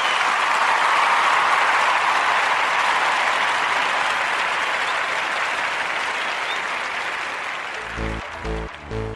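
Crowd applause, a dense even clapping that slowly eases off; about eight seconds in, a pulsing electronic bass beat starts at about two beats a second.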